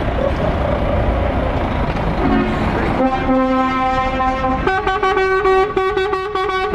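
DAF XF truck's diesel engine pulling past, then its air horn sounding. It holds a lower note from about three seconds in, then switches to a higher note, held with short breaks until near the end.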